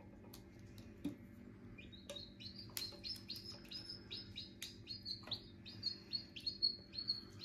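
A newly hatching chick, still half in its opened shell, peeping in quick short high chirps, about three a second, starting about two seconds in, with a few light clicks among them.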